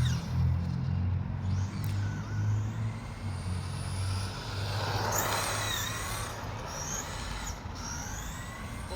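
Electric motor of a 2WD Traxxas RC truck whining, its pitch rising and falling as it speeds up and slows, with a scuffing rush of tyres on the ground about five seconds in.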